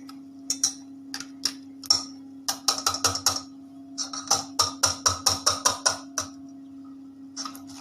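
A utensil clinking and scraping against a bowl while stirring a lemon-cream mixture of egg yolks, sugar, cornstarch, milk and yogurt. There are a few scattered clicks at first, then two quick rhythmic runs of taps, with a short pause between them.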